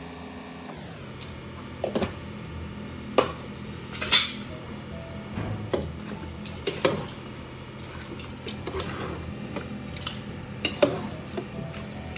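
Metal spoons clinking and scraping against a large metal cooking pot as spice is spooned in and chicken is stirred: about a dozen sharp clinks at irregular intervals over a steady hum.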